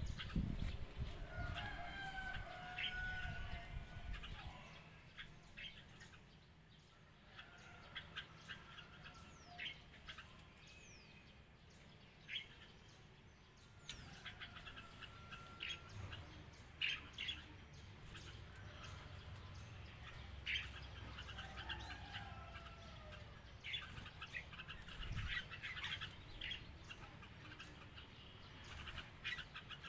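Red-whiskered bulbuls calling with short chirps and brief warbled phrases, scattered through the whole stretch, with sharp clicks and flutters among them.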